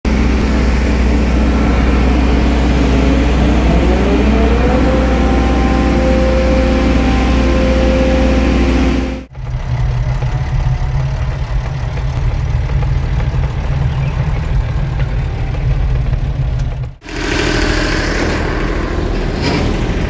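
Kato mobile crane's engine running, revving up a few seconds in and holding the higher speed. After a cut it runs steadily at a lower pitch, and the sound changes again near the end.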